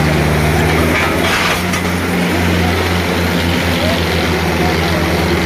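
Two diesel tractor engines, a John Deere 5310 and a Mahindra Arjun Ultra 555, running hard at full throttle under heavy load as the tractors pull against each other. The engine note shifts in pitch about a second in.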